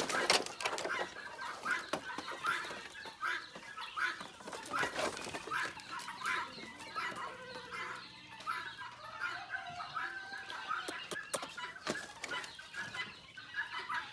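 A flock of chickens clucking, with many short calls overlapping all the way through.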